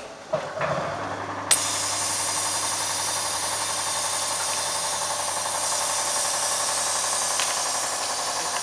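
Vacuum former's 1.1 kW vacuum pump switching on suddenly about a second and a half in and then running steadily, a low hum under a rushing hiss of air, as it sucks the heated plastic sheet down over the mould. Before it, a few clicks from the control-panel buttons.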